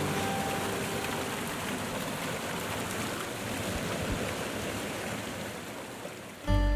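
Waterfall: a steady rush of falling water, an even hiss with no rhythm or tone.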